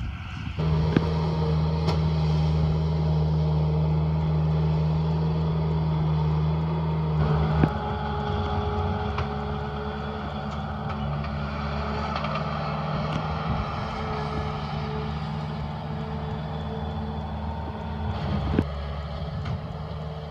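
Backhoe loader's diesel engine running steadily, its pitch stepping up about seven seconds in, with a few sharp metallic knocks.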